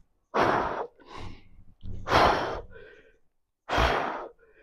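A man breathing hard through a set of crunches: three loud, forceful exhales about every second and a half, with fainter breaths between them.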